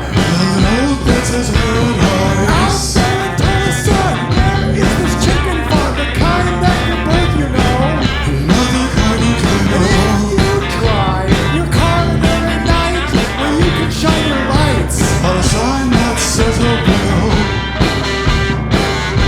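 Rock song playing, full band with drums, bass and guitar and a steady beat, with some singing or lead melody lines.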